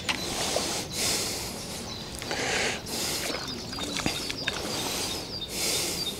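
Fishing reel being wound in short bursts while a hooked trout is played in close, with the fish splashing at the surface.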